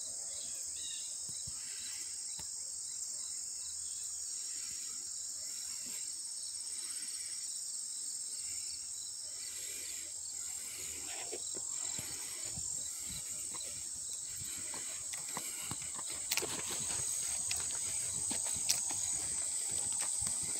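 A chorus of insects trilling steadily at a high pitch in summer brush. Scattered clicks and rustles join in the second half.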